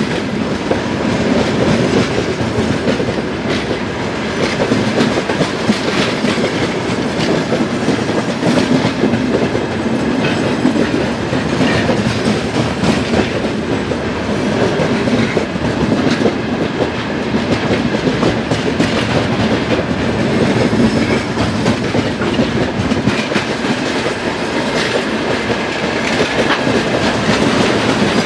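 Freight train of open-top wagons rolling past, the wheels clicking rhythmically over rail joints over a steady rumble and rattle.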